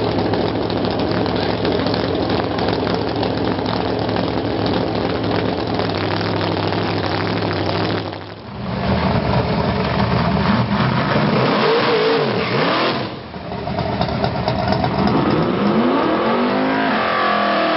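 Drag-car engines at full volume. A supercharged engine runs loud and steady at first; after two abrupt cuts, engines rev up and down and then climb to a high, held rev.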